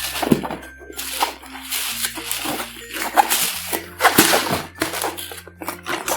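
Light background music with held bass notes, under loud irregular squishing and crackling noises from slime being squeezed and mixed by hand, about one burst a second.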